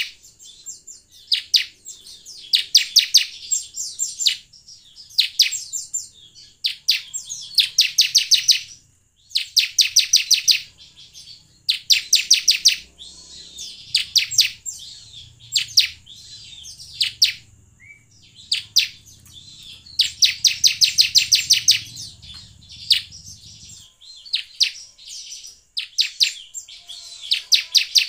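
Bar-winged prinia (ciblek) calls: bursts of rapid, evenly spaced high chips, about ten a second, each burst lasting about a second and repeated every second or two. This is the kind of ciblek call played as a lure to get a caged ciblek singing.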